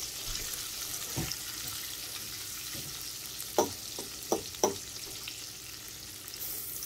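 Sliced bell peppers sizzling steadily in oil and butter in a stainless steel skillet. A dull knock comes about a second in, and a few sharp taps follow between three and five seconds in as the strips are pushed around in the pan.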